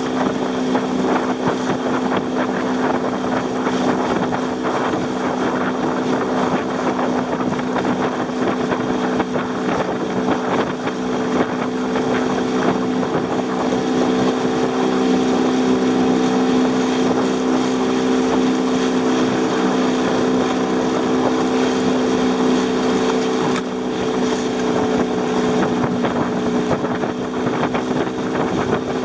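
A small fishing boat's outboard motor running at a steady cruising speed, a constant hum, with water splashing against the hull and wind on the microphone.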